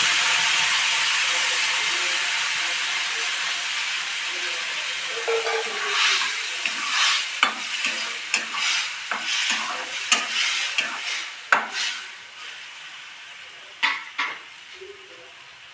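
Ground pennywort paste and mashed potatoes sizzling in hot oil in a kadai, the sizzle slowly dying down. From about a third of the way in, a spatula stirs and scrapes against the pan with irregular clicks, and two sharper knocks come near the end.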